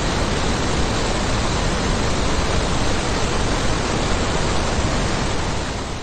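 A steady, loud hiss of even noise with no tone or rhythm in it, fading away near the end.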